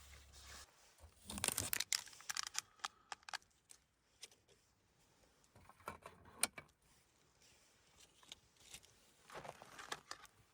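Bursts of rustling and crinkling with small sharp clicks and knocks, as of things being handled at close range: about a second in, around six seconds in, and again near the end.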